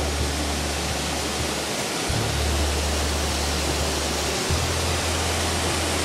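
Mountain river rushing over rocks, a steady even roar of water.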